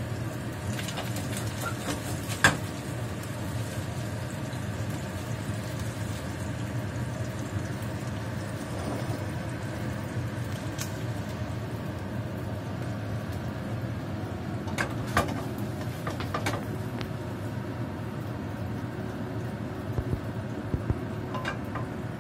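Spatula and wooden spoon scraping and clinking against a nonstick frying pan as fried fish is lifted out, a few sharp clinks standing out about 2 s in, around 15 and 16 s, and near the end. Under it, a steady hum, typical of a kitchen range hood fan.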